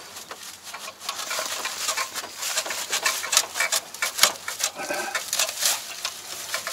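Dry straw rustling and crackling in quick, irregular bursts as it is pulled by hand from among the toothed cutter discs of a Yanmar AE447 combine, clearing the straw jam in the cutter that stalled the engine.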